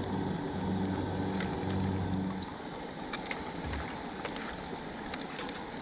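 An engine running with a low, pulsing hum that stops about two and a half seconds in, over a steady hiss with scattered sharp crackles.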